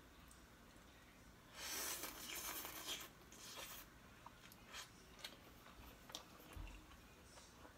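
Noodles of Korean ramen slurped from a bowl, a hissing slurp lasting about two seconds, then a few faint clicks.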